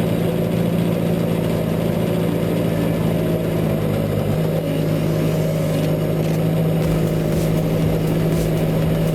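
Heavy logging machine's engine running steadily at an even, constant pitch.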